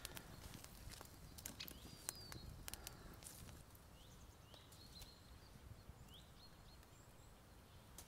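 Small campfire crackling, with sharp snaps for the first few seconds, then a small bird's short chirps repeating several times in quiet woodland.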